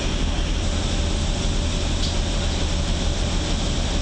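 Steady cabin noise inside a shuttle bus on the move: a constant low rumble with road and air-conditioning hiss over it.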